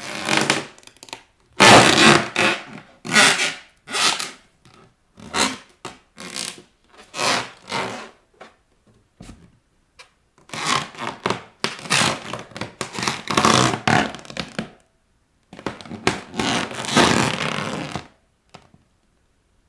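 Inflated rubber balloons pressed and rubbed under bare feet, the rubber squeaking and scraping in a string of short bursts, with a longer stretch of continuous rubbing in the second half.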